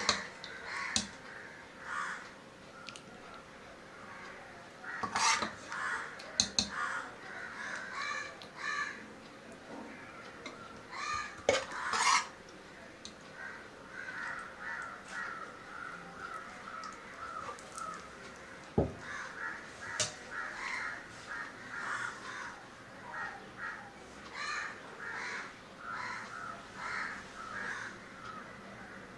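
Steel ladle knocking and scraping against a ceramic bowl as curry is spooned in, with a few sharp louder clinks scattered through. Repeated short bird calls go on in the background.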